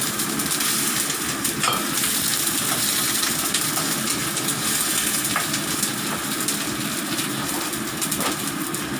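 Food sizzling steadily in a steel frying pan on a gas stove as liquid is added and stirred, with a spatula clicking against the pan a few times.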